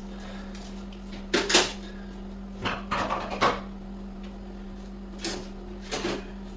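Sharp metallic clacks and clicks of a socket wrench as the rear brake caliper bolts are snugged and torqued. There are about six separate knocks, the loudest about a second and a half in, over a steady low hum.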